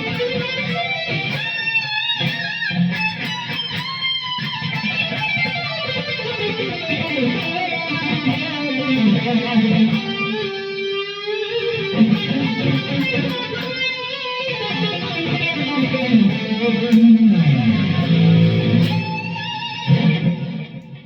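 Ibanez K7 seven-string electric guitar played on a lead tone: single-note lines with wavering vibrato and sliding bends. The last note dies away at the end.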